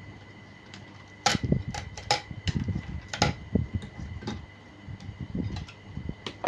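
Irregular clicks and light knocks of small hard parts of an opened laptop being handled, starting about a second in, over a faint steady high whine.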